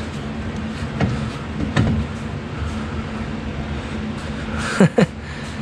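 A splined VW axle shaft being worked in its wheel bearing housing, giving a few short metallic scrapes and two quick falling squeaks near the end, over a steady low hum. The bearing's grease has gone hard as a rock.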